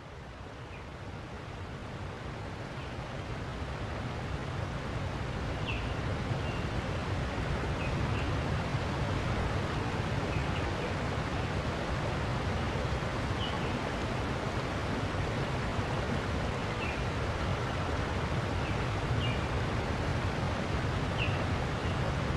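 Outdoor nature ambience: a steady rushing noise that swells in over the first several seconds, with a short bird chirp every two to three seconds.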